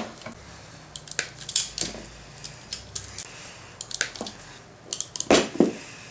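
A ratcheting hand crimping tool clicking and clacking in short clusters as it is worked and handled to crimp solderless spade terminals onto wires. The loudest clack comes about five and a half seconds in.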